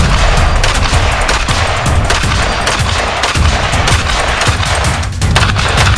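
Masterpiece Arms MPAR-556 semi-automatic 5.56×45mm carbine firing rapidly, several shots a second in quick succession, each a sharp crack.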